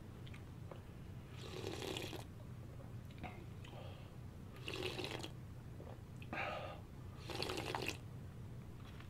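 Slurping spicy seafood noodle soup (jjamppong) broth straight from the bowl: four separate, drawn-out slurps a second or more apart.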